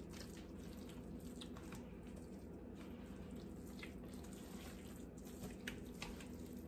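Faint wet squishing and a few soft ticks as a gloved hand mixes and squeezes moist, broth-soaked cornbread dressing in a large metal pan, over a low steady hum.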